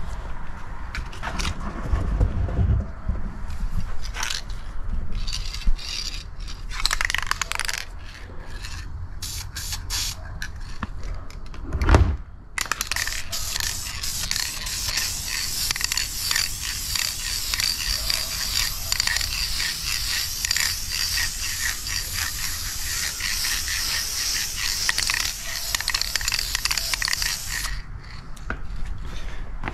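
Aerosol spray can of Duplicolor vinyl and fabric coating spraying a steady hiss for about fifteen seconds, starting about twelve seconds in and cutting off near the end. Before it come scattered handling knocks and scrapes, ending in one sharp knock just before the spraying starts.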